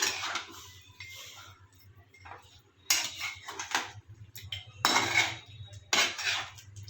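Metal spoon or spatula scraping and stirring chicken in a cooking pan, in several separate strokes a second or two apart.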